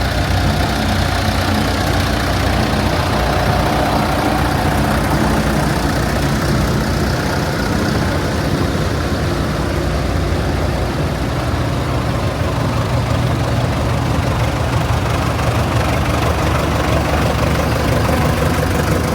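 Diesel engine of a JCB 3CX Sightmaster backhoe loader idling steadily.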